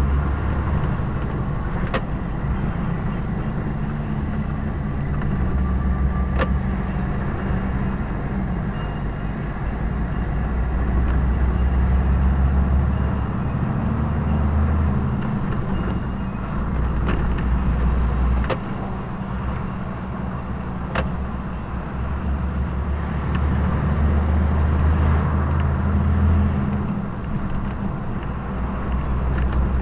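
Semi-trailer truck's diesel engine running on the road, a steady low drone with road noise, which drops back and picks up again several times as the throttle is eased and reopened. A few sharp clicks or knocks come at uneven intervals.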